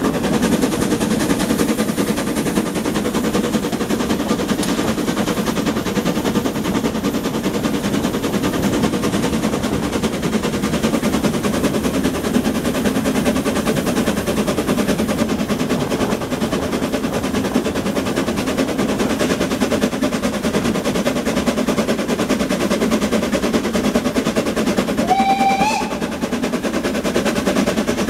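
Narrow-gauge steam locomotive 99 4801-9 heard right at its smokebox front while running, its exhaust beats and running gear making a fast, even chatter with wind noise. A short whistle blast sounds about 25 seconds in.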